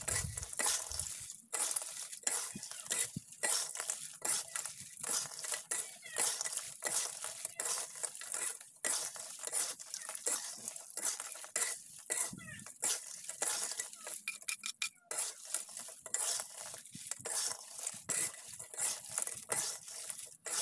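A spatula scraping and stirring in a wok, tossing crispy fried chicken skin and dried chillies in a chilli mix with the gas off. An irregular run of scrapes with dry crackly rustling at each stroke.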